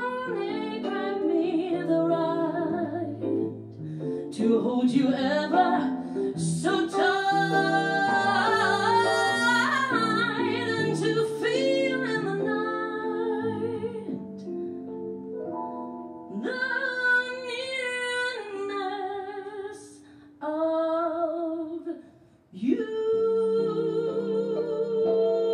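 Female vocalist singing a jazz ballad with instrumental accompaniment. Near the end, after a brief drop-out, she holds a long note with vibrato.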